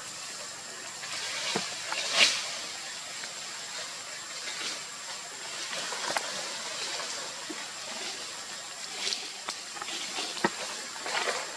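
Leaves and branches rustling in short bursts as macaques climb through the tree canopy, with a few sharp twig snaps; the loudest rustle comes about two seconds in. A faint steady high-pitched whine runs underneath.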